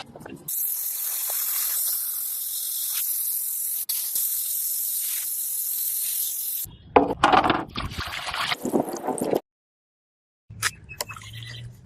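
A steady high-pitched hiss for about six seconds, then a few seconds of irregular clattering noises, a sudden second of dead silence, and more scattered knocks near the end.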